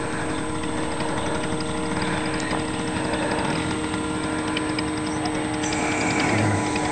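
Paramotor engine running steadily, its pitch holding level.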